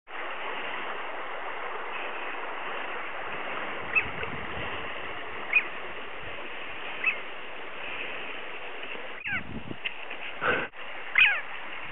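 Arctic tern giving short, sharp alarm calls as it flies overhead, single calls a second or two apart, then a quicker run of harsher, falling calls near the end: an upset, scolding bird. A steady hiss runs underneath.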